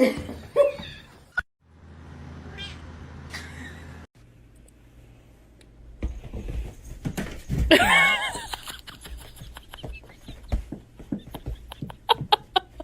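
A cat meowing, with one loud, drawn-out meow about eight seconds in that rises and falls in pitch.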